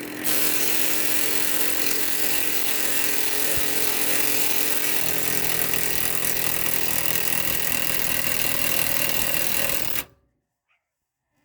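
A power tool running steadily at full power, driving a homemade ATV tire-removal jack, then cutting off suddenly about ten seconds in once the tire comes off.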